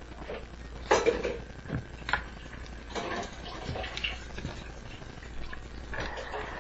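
Hands handling trading cards and homemade card packs: irregular rustles, taps and clicks, the loudest about a second in, over a low steady hum.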